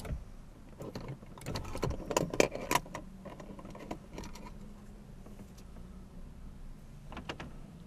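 Rattling and sharp clicks of a Baofeng UV-5R hand-held radio and its coiled-cord speaker microphone being picked up and handled, mostly between about one and a half and three seconds in, with a few more clicks near the end. A steady low hum runs underneath.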